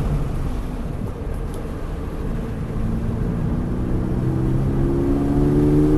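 Onboard sound of a 2023 Subaru BRZ's flat-four engine on a track lap, with heavy wind noise on the microphone. The engine is subdued at first, then from about two seconds in it pulls hard, its pitch rising steadily as the car accelerates.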